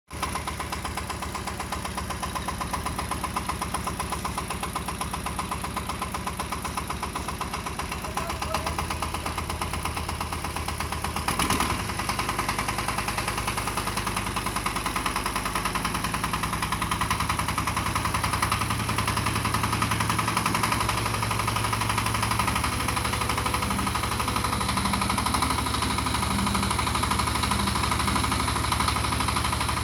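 A 35 hp mini tractor's engine running steadily with a fast, even chugging. About eleven seconds in there is a single clank, and after that the engine note shifts and runs a little louder.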